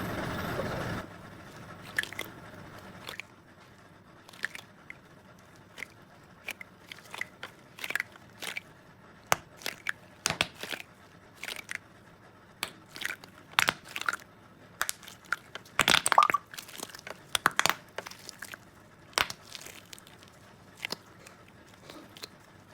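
Crunchy squishy toy being squeezed and pressed: irregular crisp crackles and crunches, with a dense burst about two-thirds of the way through. A steady hiss cuts off about a second in.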